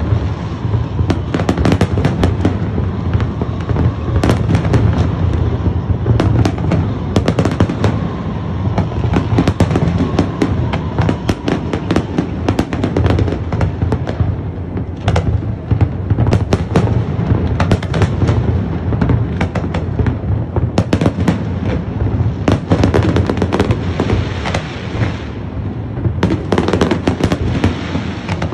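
Fireworks display in full barrage: dense bangs and crackles, several a second, over a steady low rumble.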